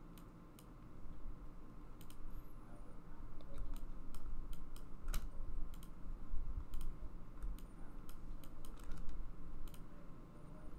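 Irregular clicks of a computer mouse and keyboard, a dozen or so sharp clicks at uneven intervals, over a low steady hum.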